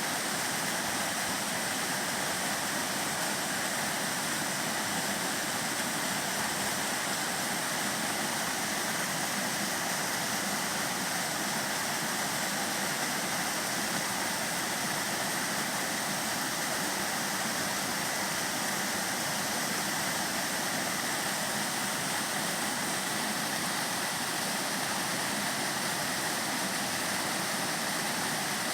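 Mountain valley stream rushing steadily over rocks, an even, unbroken water noise.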